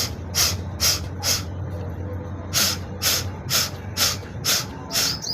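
Forceful, sharp exhalations blown out through the nose in quick succession, clearing leftover saline water from the nasal passages after jal neti. Two runs of short blasts, about two a second, with a pause of about a second between them.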